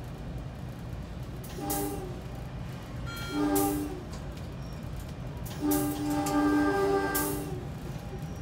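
Commuter train's multi-note horn sounding two short blasts and then one long blast of about two seconds, warning a grade crossing ahead, over the steady low rumble of the train running on the rails, heard from inside the leading cab.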